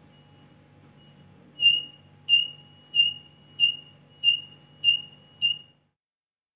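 Piezo buzzer of a homemade LDR light-sensor alarm beeping while a flashlight shines on its sensor. A few faint beeps come first, then seven loud high beeps at about one and a half a second, stopping shortly before the end.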